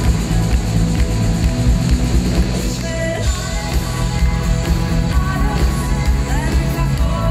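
Live pop song played by a band on keyboards and drums, with a singer's amplified vocal over it.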